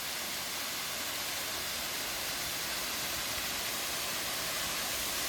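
Steady rushing of a small roadside monsoon waterfall.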